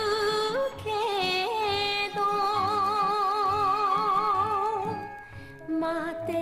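A woman singing an enka ballad melody with heavy, wide vibrato over instrumental backing. She holds one long wavering note through the middle, drops off briefly about five seconds in, and then starts the next phrase.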